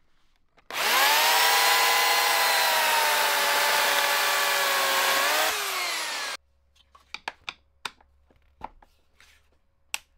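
Corded electric chainsaw with a universal series-wound motor whines up to speed and cuts into a log. Near the end its pitch drops as it winds down, and it stops about six seconds in. A few light clicks follow, from a screwdriver working on the saw's plastic housing.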